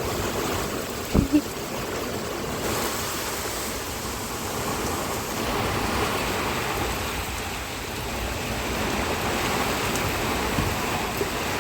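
Heavy rain pouring steadily in a tropical storm, a continuous hiss. A little over a second in there are two brief knocks, the loudest sounds.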